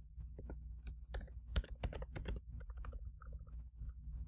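Computer keyboard being typed on: separate key clicks at an uneven pace, over a steady low hum.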